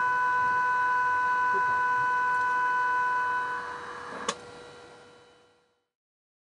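Odakyu Romancecar auxiliary warning sound, the train's musical horn melody, reproduced electronically for an N-gauge model: one steady electronic note is held for about three and a half seconds, then fades out. A sharp click comes about four seconds in.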